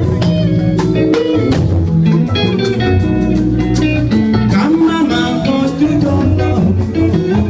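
Yoruba gospel band music: guitar lines over a drum beat, played as an instrumental stretch between sung lines.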